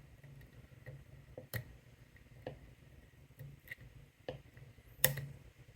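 Lock pick and tension wrench working the pin stack of a padlock: faint, irregular metallic clicks as the hook lifts and sets pins, with a louder click about five seconds in.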